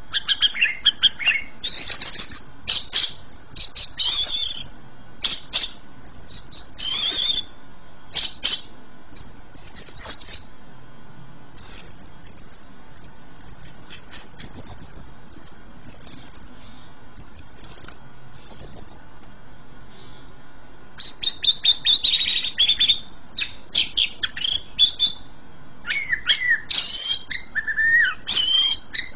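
Greater green leafbird (cucak ijo) singing in full voice: long runs of rapid, varied high chirps and whistles, with a brief lull about two-thirds of the way through before a dense burst of song.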